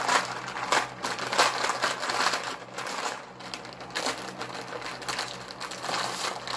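A packet of dry barbecue-flavored noodle snack crushed by hand inside its plastic wrapper: irregular crunching of the brittle noodles and crinkling of the bag, louder in the first second or two.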